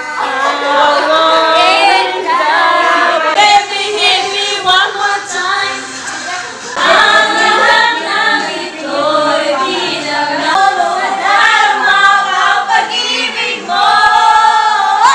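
Female voices singing together, several voices at once, with no clear accompaniment.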